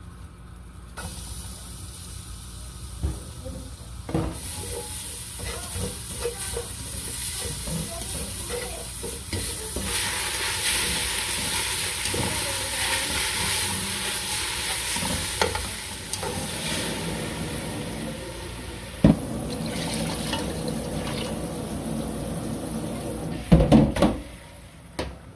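Food sizzling in a frying pan while it is stirred, with scattered clicks and scrapes of a utensil. The sizzle grows louder about ten seconds in, and a few sharper knocks of the utensil on the pan come near the end.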